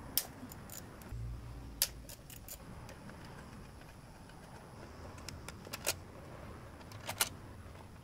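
Hand tools and small metal parts clicking and tapping as they are handled: about a dozen sharp, scattered clicks, with a short low thump a little over a second in.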